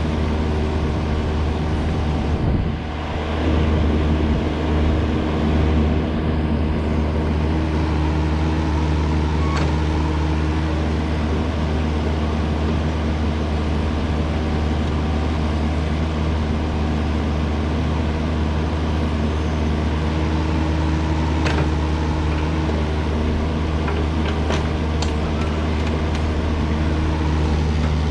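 A heavy-equipment engine running steadily at a constant speed, with a few light clicks or knocks scattered through.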